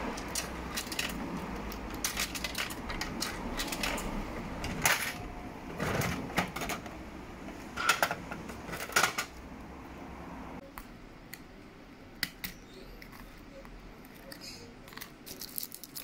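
Coins dropped into a capsule-toy (gashapon) vending machine and its dial turned, giving a run of sharp mechanical clicks with a dull knock near the middle as the plastic capsule falls into the chute, then more clicks as the capsule is taken out through the flap. After that the background goes quieter and only sparse light clicks of plastic being handled remain.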